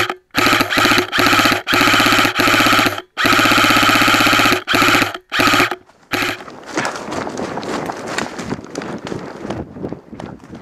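Airsoft gun firing long fully automatic bursts, each a rapid even string of shots, about eight bursts with short pauses. About six seconds in the firing stops, giving way to running footsteps crunching through dry leaves and brush.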